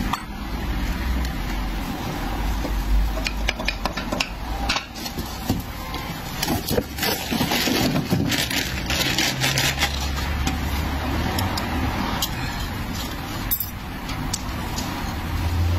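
Metal clinks and knocks as a rusty old shock absorber and a new one are handled and set down on a concrete floor, over a low steady hum.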